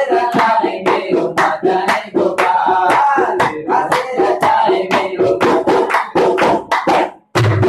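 Male voices singing to harmonium with rapid tabla hand strokes. The music breaks off for a moment just before the end.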